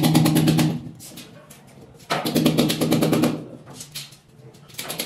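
Hammer drill boring into a concrete wall in short bursts with a rapid rattle: one burst at the start and another about two seconds in.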